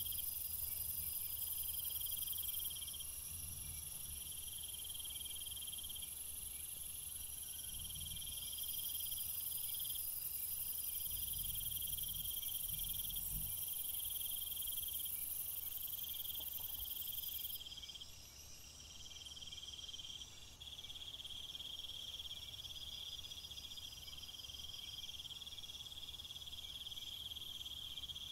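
A chorus of insects trilling from the garden vegetation: a continuous shrill, high-pitched buzz with rapidly pulsing calls layered over it.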